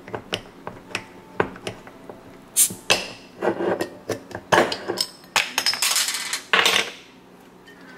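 A metal Nite Ize S-Biner bottle opener working the crown cap off a glass bottle of Guinness Extra Stout: a run of sharp metallic clicks, clinks and short scrapes as the cap is levered loose.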